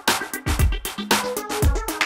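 Background music with a steady, heavy drum beat, in an electronic dance style.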